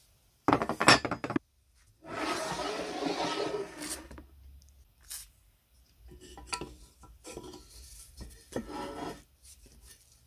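Handling of rusty cast-iron umbrella stand parts: a loud metallic clatter about half a second in, then about two seconds of rough scraping. After that come irregular small metal clicks and scrapes as an adjustable wrench works a rusted nut on the cast-iron base.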